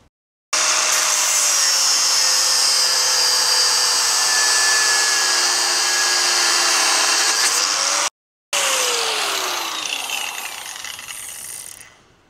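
Angle grinder cutting through the old lower control arm bolt, its whine sagging slightly in pitch under load. After a brief dropout about eight seconds in it runs on and winds down, the pitch falling as it fades out near the end.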